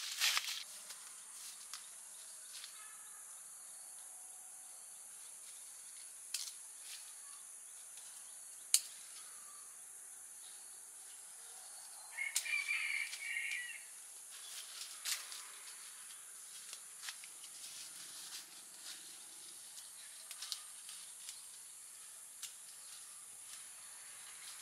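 Steady high-pitched buzz of insects in an orchard, with scattered sharp clicks and rustles as fruit is cut and handled, and a brief louder sound about halfway through.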